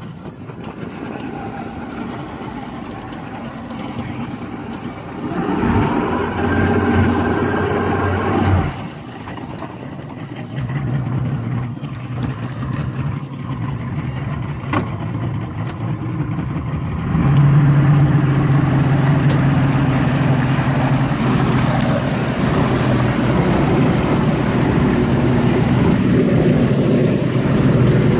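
Yamaha 150 HP V6 two-stroke outboard (OX66 Saltwater Series II) running in the water, with its engine note stepping up and down in speed a few times, then climbing to a louder, steady higher speed about two-thirds of the way through.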